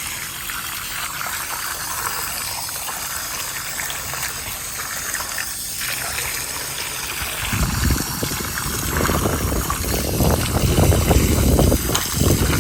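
Garden hose spraying water to flush sand and leaves out of a pool robot's debris compartments and filter. A steady hiss of spray that gets heavier and fuller about seven and a half seconds in.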